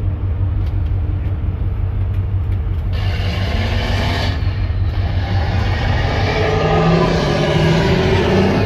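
Tugboat diesel engines: a steady low rumble throughout. From about three seconds in a louder, rougher engine sound builds and keeps growing toward the end as a push boat alongside runs up under heavy throttle.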